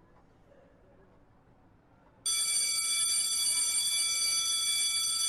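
Faint room tone, then about two seconds in a school bell starts ringing: a loud, steady ring made of several high tones, signalling the end of class.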